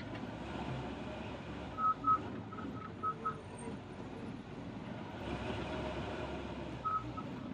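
Cat D6K LGP bulldozer's diesel engine running steadily, with short high beeps from its reversing alarm: a quick string of them about two to three seconds in, and a couple more near the end.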